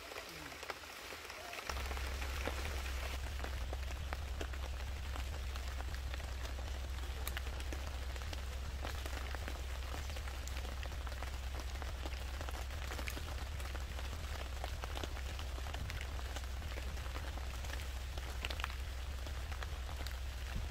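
Rain falling, with many single drops ticking on a surface over a steady hiss. A steady low hum sets in about two seconds in.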